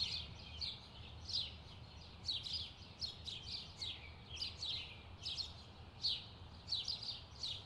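Birds chirping: many short, high notes, each sliding quickly downward, coming in small clusters throughout, over a faint low rumble.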